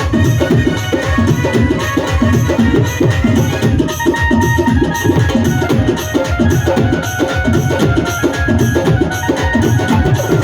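Music led by fast, dense hand drumming, with a few held melodic tones above it.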